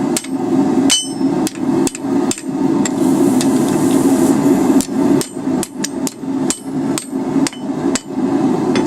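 Hand hammer striking hot steel on an anvil in uneven blows about two a second, some with a bright anvil ring, bending a split tine of the heart 90 degrees. The blows pause for about two seconds in the middle. A steady low roar runs underneath, the lit gas forge.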